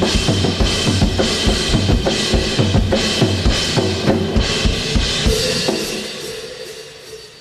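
Jazz drum solo on a full drum kit: fast, dense strikes on bass drum, snare and toms under washing cymbals. About six seconds in the playing stops and the cymbals ring down, fading.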